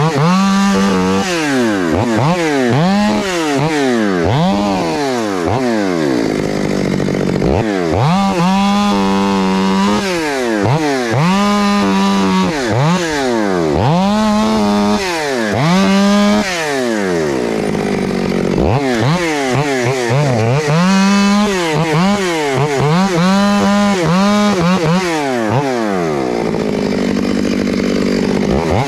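Chainsaw cutting into timber, its engine revving up and falling back over and over, about once a second, with a few short steadier stretches at lower revs.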